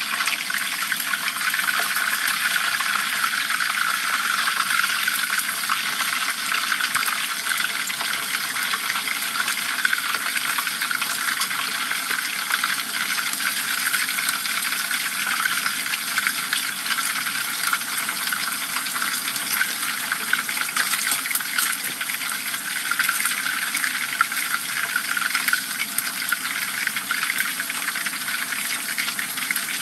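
Hot oil sizzling steadily around whole dorado fish deep-frying in a pan, a dense hiss full of fine crackles.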